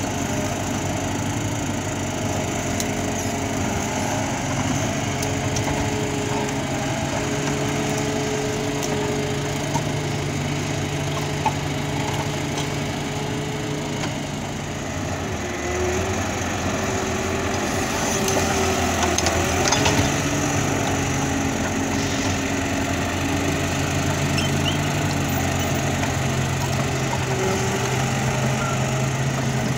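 Ponsse Wisent forwarder's diesel engine running steadily as the loaded machine drives on its bogie tracks, its note shifting about halfway through, with a few faint cracks and clicks.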